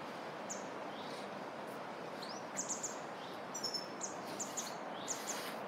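Small birds chirping, short high calls scattered singly and in quick runs of two or three, over a steady even hiss.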